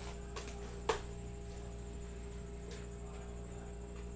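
Steady electrical mains hum, with a few light clicks from a trading-card box and its foil wrapper being handled; the sharpest click comes about a second in.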